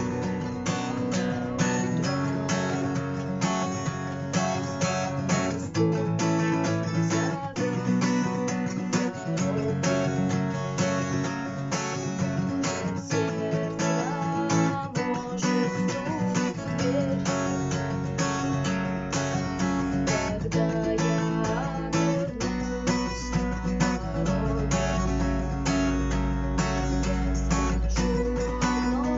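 Acoustic guitar strummed in a steady rhythm, played as a knock (стук) strumming pattern with percussive strokes between the strums. The chords change every couple of seconds.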